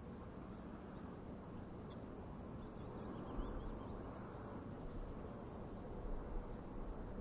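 Outdoor ambience: a steady low rumble with a few faint, high bird chirps now and then.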